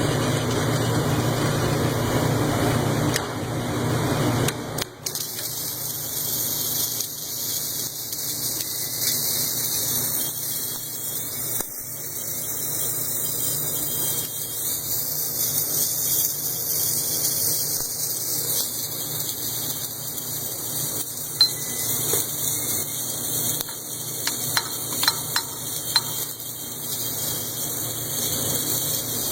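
Steady hissing of an automated crankshaft journal repair machine at work, with a few sharp ticks near the end. A louder lower layer in the sound drops away about five seconds in.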